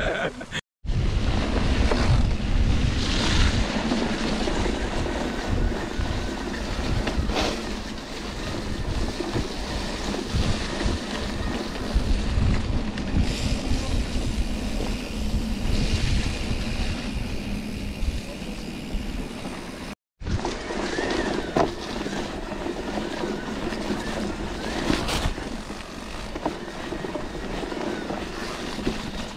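Wind buffeting a camera microphone over the rumble and rattle of a mountain bike on a trail, with a few sharper knocks. The sound drops out completely for a moment twice, just under a second in and about twenty seconds in.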